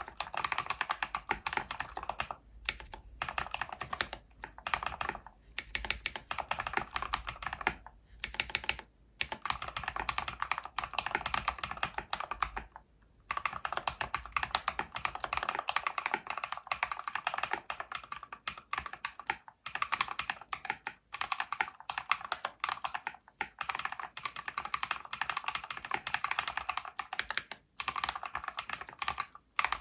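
Mechanical keyboard with Holy Panda tactile switches in a full-aluminium case being typed on in fast, continuous runs of keystrokes, broken by a few brief pauses.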